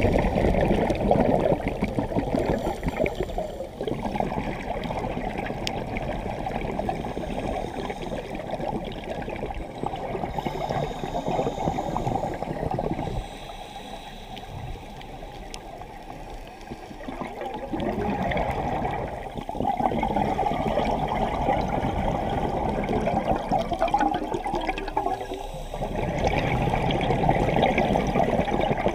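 Underwater bubbling and gurgling from scuba divers breathing out through their regulators, a dense crackle of bubbles heard through the camera's underwater housing. It runs in long loud stretches with a quieter lull about halfway through.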